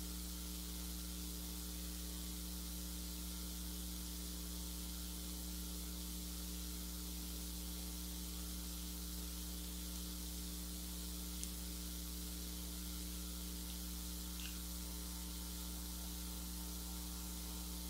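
Steady electrical mains hum with a layer of hiss, and one faint tick a little past the middle.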